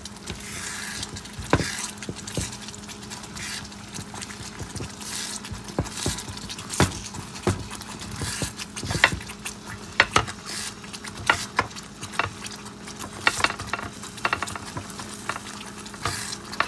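Thick chicken korma gravy bubbling and sizzling in a pan as it is reduced, with a spatula stirring through it and knocking and scraping against the pan many times. A steady low hum runs underneath.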